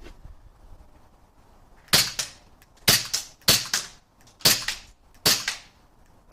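WE G19 gas blowback airsoft pistol firing semi-auto, about six sharp cracks at an uneven pace starting about two seconds in, each shot followed at once by the clack of the slide cycling.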